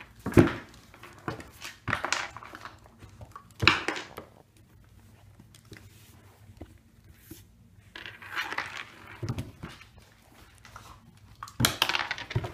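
An ice cube clattering and skittering across a hardwood floor as a puppy pounces on it. It comes in several sharp bursts, loudest about half a second in and near four seconds, with a quieter stretch in the middle and another flurry near the end.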